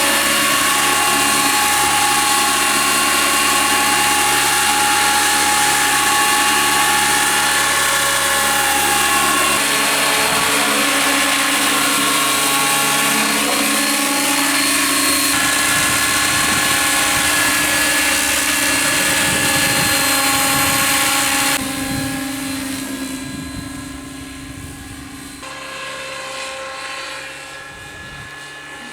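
Radio-controlled Bell 222 scale model helicopter running in flight, its rotors and motor making a steady whine of several held tones. The sound drops suddenly about three-quarters of the way through and stays quieter and uneven.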